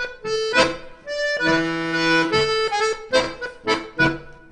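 Background music played on an accordion: short, separate chords with one longer held chord about a second and a half in.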